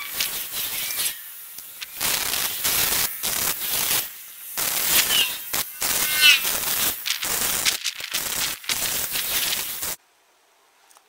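Wire-feed welder arc crackling and sizzling in several bursts with short pauses, as steel is welded onto a propane cylinder; it cuts off suddenly near the end.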